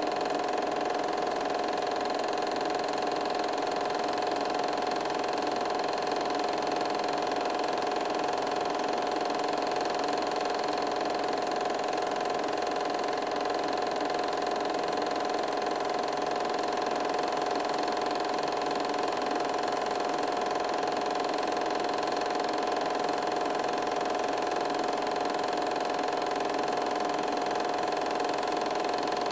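8mm film projector running with a steady, unchanging mechanical hum.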